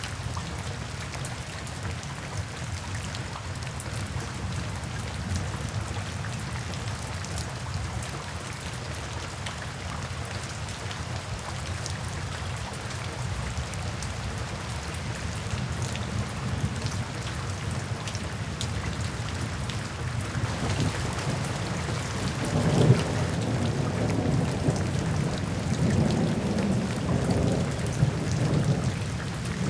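Steady rain falling, with a long roll of thunder building in the last third and rumbling loudest a little after that.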